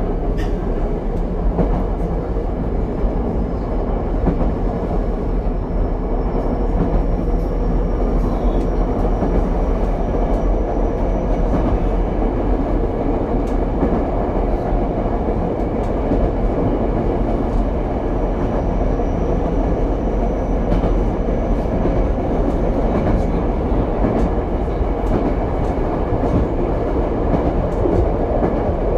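Ichibata Electric Railway 7000-series railcar 7001 running between stations, heard from inside the car: a steady rumble of wheels on rail with scattered rail-joint clicks. A faint high whine rises slowly twice.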